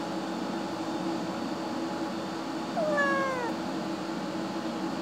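A kitten meows once, a short call falling in pitch, about three seconds in, over a steady low hum.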